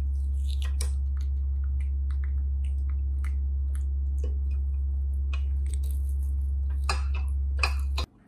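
Baby macaque brushing and chewing on a manual toothbrush, making scattered clicks and scratchy scrapes of bristles and plastic against its teeth. Under them a steady low hum is the loudest sound, and it cuts off suddenly just before the end.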